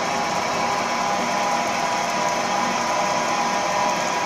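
Gantry CNC drilling and milling machine cutting into a metal plate: a steady, even machining whine from the spindle, with a few held tones over a dense rushing noise.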